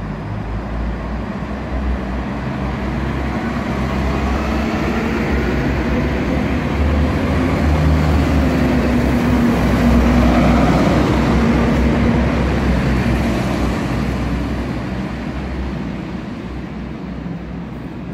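DB Class 643 "Talent" diesel multiple unit pulling out and passing close by, its diesel engines running under power over the wheels on the rails. It grows louder to a peak about ten seconds in, then fades as the train draws away.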